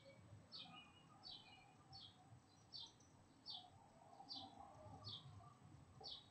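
A small bird chirping over and over: short, high, slightly falling chirps, about one every two-thirds of a second, over a faint low background rumble.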